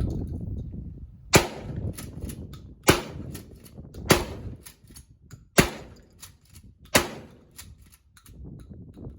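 Five gunshots from a firearm, fired one at a time about a second and a half apart, each with a short ringing tail.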